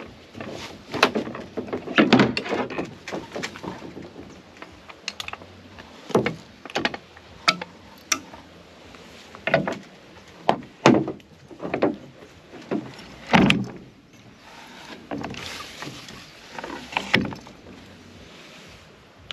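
Irregular knocks, clicks and scrapes of oars and metal riggers being handled and fitted into the oarlocks of a sculling boat, about fifteen sharp knocks spread unevenly with scraping in between.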